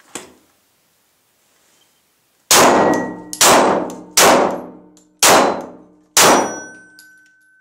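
Five 9 mm shots from a Glock 17 pistol, about a second apart, each followed by the ringing of struck steel targets; the last ring dies away near the end.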